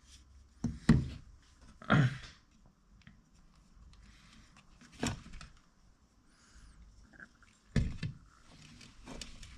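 Hand-handling of a small-engine recoil pull-starter while new starter rope is threaded through its pulley: a few separate knocks and clicks, with a short rustle about two seconds in.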